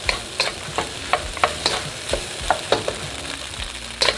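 Rice, eggs and vegetables sizzling in oil in a hot wok while being stirred, the utensil scraping and clicking against the pan about three times a second.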